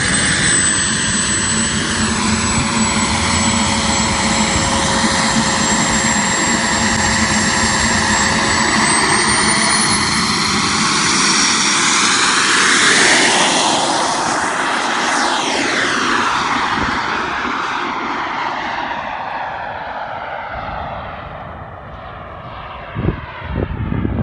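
Turbine of a CARF-Models J-10 scale RC jet whining steadily, rising in pitch about nine seconds in as it spools up, then sweeping past with falling pitch and fading into the distance. Near the end, wind buffets the microphone.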